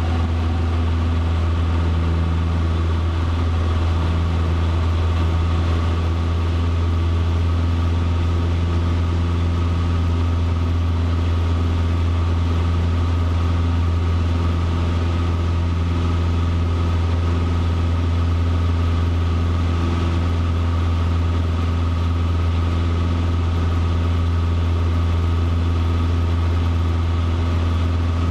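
Cessna 150's four-cylinder Continental O-200 engine and propeller at takeoff power, a loud steady drone heard inside the cabin through the takeoff roll, liftoff and initial climb.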